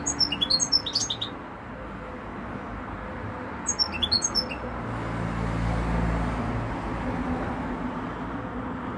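Caged European goldfinches chirping: a quick run of high twittering notes in the first second or so and another short burst about four seconds in, over a low rumble that swells in the middle.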